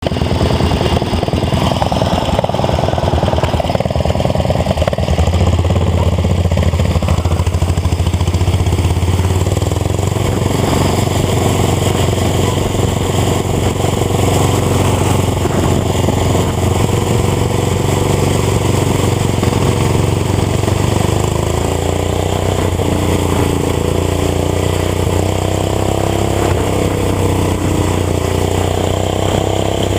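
Garden tractor engine running loud and steady under power, its pitch drifting up and down a little in the second half.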